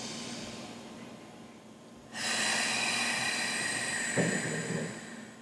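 A woman's long, audible breath through the nose, starting suddenly about two seconds in and lasting nearly three seconds, with a short hum-like sound of the voice near its end.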